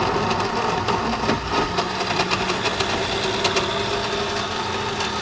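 Countertop blender running steadily, mixing a milkshake, with a constant motor hum and many small rattling ticks.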